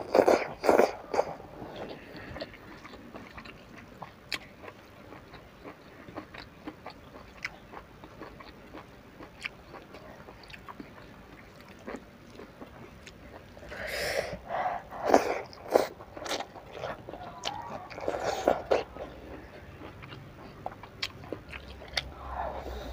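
Close-miked eating by hand: chewing with small wet mouth clicks. There are louder bursts of chewing right at the start and again from about two-thirds of the way in.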